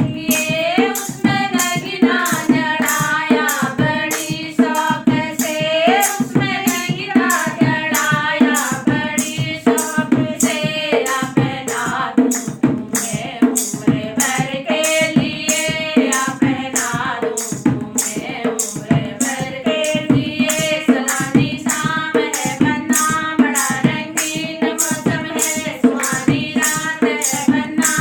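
Singing of a Hindi banna-banni wedding folk song, with a hand drum keeping a steady beat of about two strokes a second.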